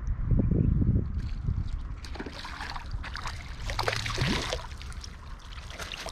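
River water splashing and sloshing as a hooked trout is played and brought in, with a loud low rumble in the first second.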